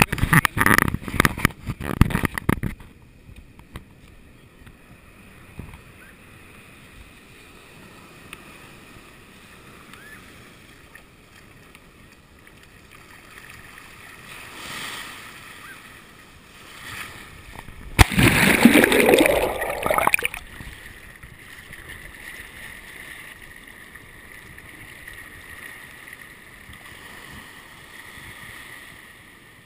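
Surf in a stormy sea heard through a GoPro's waterproof housing held in the shallows: a few seconds of knocking and rubbing from the camera being handled, then a muffled wash of water, with a loud rush about eighteen seconds in as a wave breaks over the camera.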